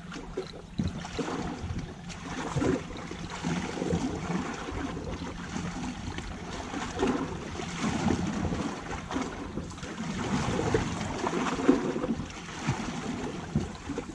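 Wind buffeting the microphone in uneven gusts over the wash of sea waves at the shore.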